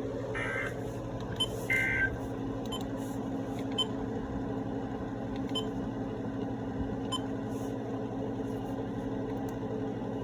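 Weather radio broadcast between messages: a steady hum and hiss from the receiver, broken near the start by two short, buzzy digital data bursts, typical of the end-of-message code that follows a warning.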